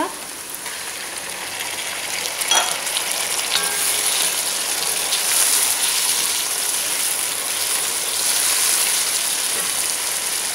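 Chopped tomatoes and onions frying in hot oil in a pot: a steady sizzle that grows louder over the first few seconds. A wooden spoon stirs them, with a knock against the pot about two and a half seconds in.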